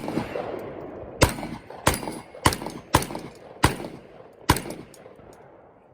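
Six gunshots fired in steady succession, roughly half a second to a second apart, each trailing off in an echo that fades away after the last one.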